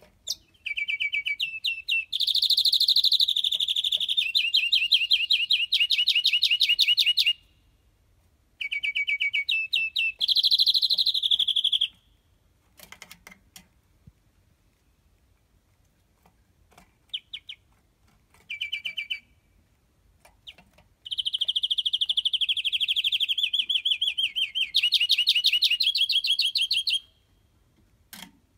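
A caged finch of the greenfinch type sings long, loud phrases of rapid trilled notes. There are three main phrases with pauses between them, and a few short notes in the gaps.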